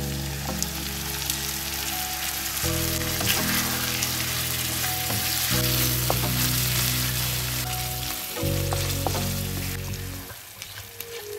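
Browned meat cubes sizzling in a frying pan as tomato-paste sauce is poured over them and stirred in with a spatula, with a few light clicks. The sizzle eases near the end.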